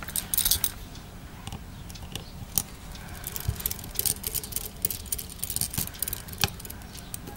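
Light, irregular clicks and small scrapes of a metal hand tool picking at the inside of an opened iPhone 4, working the water-damage sensor off to reach a screw beneath it.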